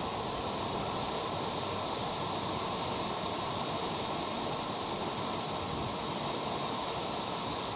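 Steady rushing hiss of outdoor background noise, even throughout, with no sneezes or other distinct sounds in it.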